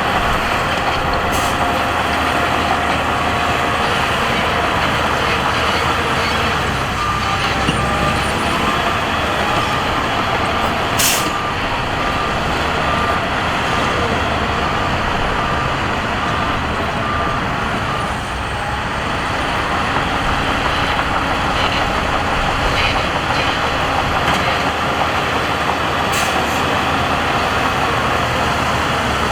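Heavy earthmoving machinery running steadily: the diesel engines of a bulldozer, wheel loader and dump trucks working rock and soil. A reversing alarm beeps steadily for about ten seconds in the middle, and there is a brief hiss about eleven seconds in.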